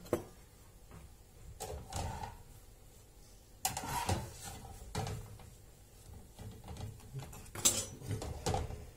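Scattered light knocks and clatter of a frying pan on the stovetop as a piadina is handled while it cooks, the loudest knocks about four seconds in and near the end.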